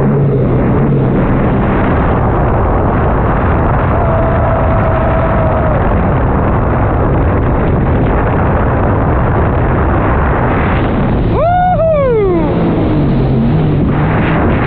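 Sea-Doo Spark Trixx jet ski running at full throttle after a racing start, under a loud steady rush of wind and water. About two-thirds of the way through, the engine note rises sharply and then falls away within about a second.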